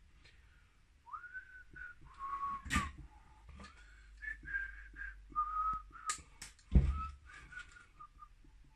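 A person whistling a tune to himself, a string of short held notes with a few pitch slides, over small clicks and knocks of parts being handled. A louder thump comes near the end.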